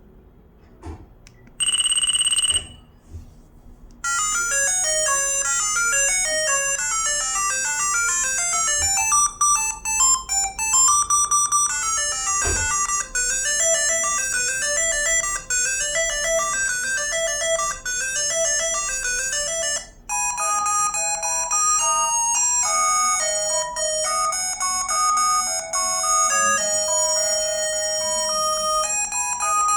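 ZTE V617 mobile phone playing its ringtones: a few faint clicks and a brief loud tone, then a quick-note melody of rising and falling runs starts about four seconds in. About two-thirds of the way through it switches to a different ringtone melody.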